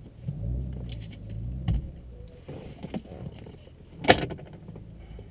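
Car engine and exhaust running steadily with a low drone, with a few light clicks and one sharp click about four seconds in.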